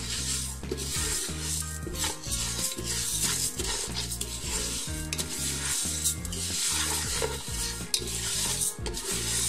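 Raw split moong dal being stirred and roasted in a nonstick pan with a wooden spatula. The grains rustle and scrape against the pan in repeated sweeps.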